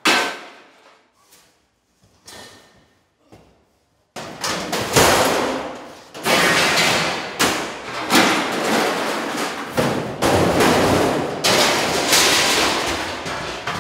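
Heavy scrap-steel pieces being pulled off magnetised walls and crashing into a pile of metal: one hard clang at the start, a couple of light knocks, then from about four seconds in a continuous run of banging, scraping and clattering steel with repeated hard impacts.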